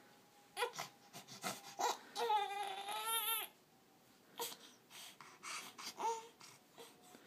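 Fourteen-week-old baby fussing on being woken: short whimpers, then one long wavering cry a little past two seconds in, then more brief, softer fussy sounds.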